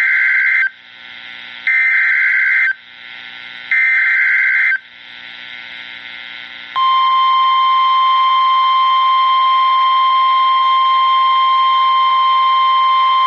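NOAA Weather Radio emergency alert: three one-second bursts of the screeching SAME data header, with radio hiss between them, then the steady 1050 Hz warning alarm tone starting about seven seconds in. This signal opens the broadcast of a new severe thunderstorm warning.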